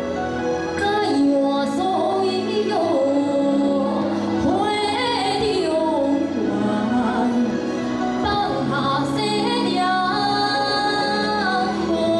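A young woman singing a Mandarin song solo into a microphone, over instrumental accompaniment of held chords.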